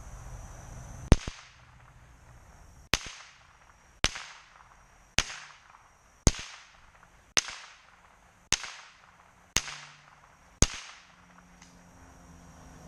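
.22 rimfire gunshots: nine sharp shots fired in steady succession about a second apart, each trailing off briefly.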